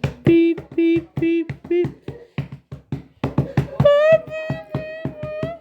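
Music with a fast percussive beat, over which a bus-horn-like tone honks four times in quick succession, then sounds once more, higher and held for over a second.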